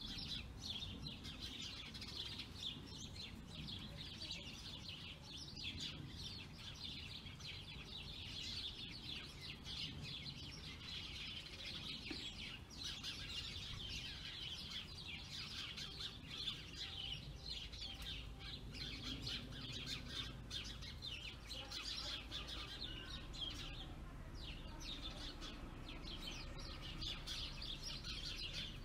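A busy, continuous chorus of many small songbirds chirping and twittering, with no pause, over a faint low rumble.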